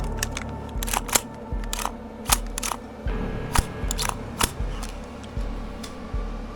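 About a dozen sharp, irregularly spaced clicks and clacks over a low thumping that comes roughly once a second.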